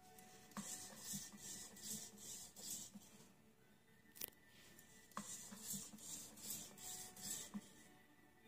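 EMO desktop robot walking: its small leg servos whirring and its feet tapping on the wooden floor in two runs of steps, about two a second, with one sharp click between them.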